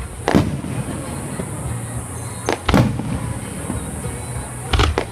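Aerial fireworks shells bursting: about five sharp booms over a few seconds, some in quick pairs, over a steady low background rumble.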